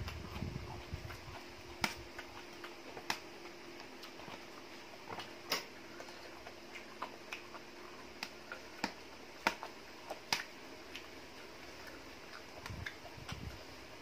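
A metal fork clicking against a serving dish while picking through glass noodles: irregular sharp ticks, a few of them louder and several seconds apart.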